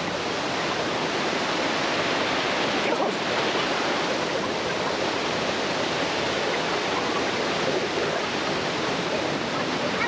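Steady rush of a waterfall's white water tumbling over rock ledges and cascades.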